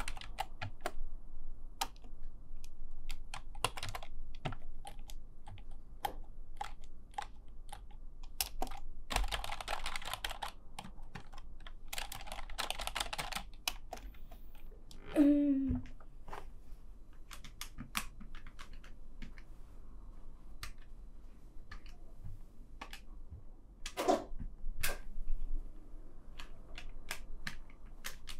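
Computer keyboard typing: a quick, uneven run of key clicks that goes on throughout. About halfway through, a brief sound falling steeply in pitch is the loudest moment.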